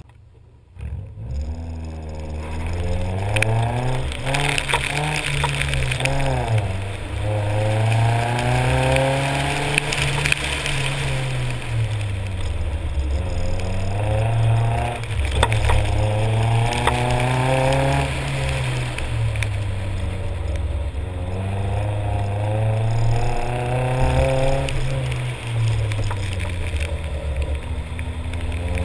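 Nissan 240SX's KA24 four-cylinder engine driven hard, starting about a second in, then revving up and dropping back again and again through the corners of an autocross run.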